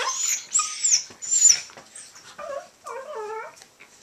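Two small dogs play-fighting, making high-pitched gliding squeals through the first second and a half, then two shorter whiny, wavering calls about halfway through, with a few faint rustles and clicks.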